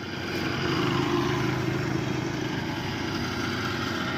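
An engine running steadily, growing a little louder in the first second.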